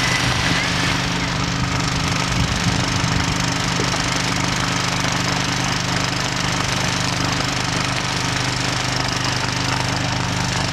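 An engine running steadily at one speed, with the hiss of a fire hose spraying water onto a smouldering tree stump.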